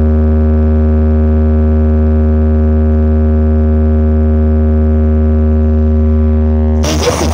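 Large DJ speaker wall playing a loud, deep, steady held tone with a stack of overtones, unchanging, as a sound-system check. Near the end a burst of busy sound with sliding pitches cuts in over it.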